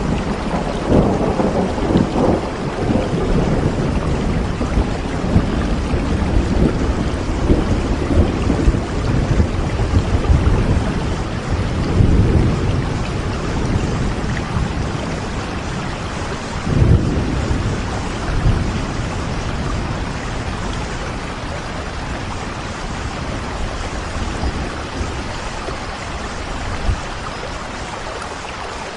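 Steady rain with thunder rumbling, the rumble swelling several times in the first half and easing off toward the end.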